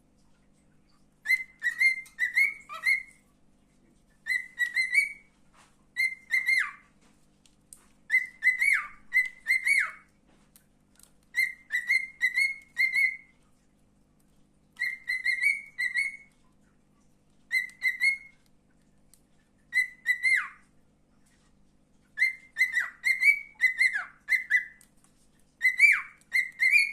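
Cockatiel whistling in short repeated phrases of a few quick notes, with brief pauses between them; several phrases end in a falling slide.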